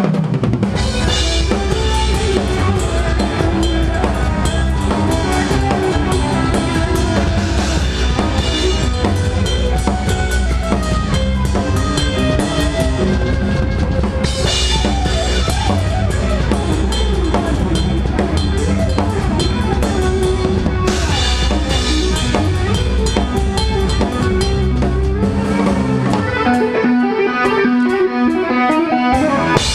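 Rock drum solo on a large multi-tom kit: fast, busy fills across snare and toms over bass drum, with cymbals ringing, played continuously.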